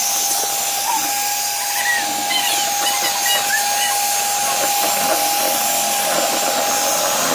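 Electric hand mixer running steadily, its twin beaters whisking egg whites in a plastic bowl, with a steady whine over the motor noise. The egg whites are being beaten to stiff peaks.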